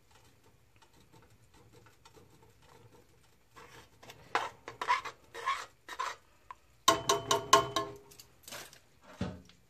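A wire whisk stirring and scraping sauce in an aluminium pot, a few strokes, then a quick run of ringing metallic clinks of the whisk against the pot about seven seconds in, and a couple of knocks near the end.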